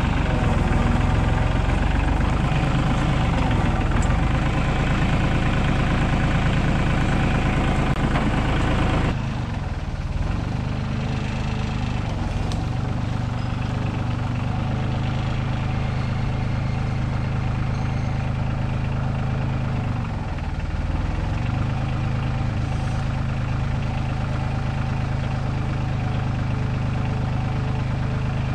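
Compact farm tractor's engine running steadily as its front loader carries and sets down a heavy log. It is loud and close for the first nine seconds, then a little quieter. The engine speed dips briefly and recovers twice as the loader takes the load.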